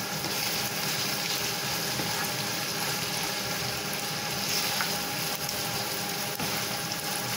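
Mussels, shrimp, squid and mushrooms sizzling steadily in butter and olive oil in a frying pan as they are stirred with a spatula.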